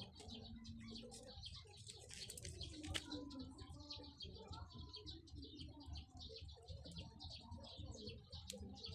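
Birds chirping in quick, constant short chirps, faint against a low background rumble.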